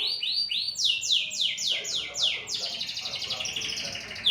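Domestic canary singing a lively song: a run of quick, high down-slurred notes, then a rapid, even trill in the second half.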